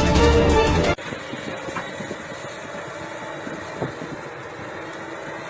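Music cuts off about a second in, giving way to a backhoe's diesel engine running steadily at a low idle, with a couple of faint knocks.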